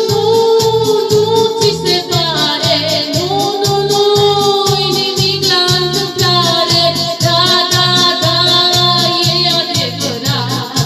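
Upbeat Christian song: a singing voice in long held notes over a steady bass beat, about two and a half beats a second.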